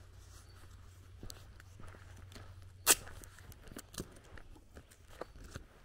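Footsteps on a dirt and gravel road, a step about every half second, with one much louder sharp click about three seconds in, over a steady low rumble.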